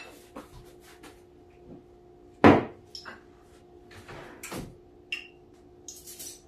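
Kitchen handling noises: scattered knocks and clatter of dishes and utensils being set down and moved, with one louder knock about two and a half seconds in, over a faint steady hum.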